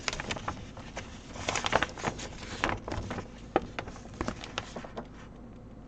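A large paper cross-stitch pattern sheet rustling and crinkling as it is handled and spread out, in many short crackles that die away about five seconds in.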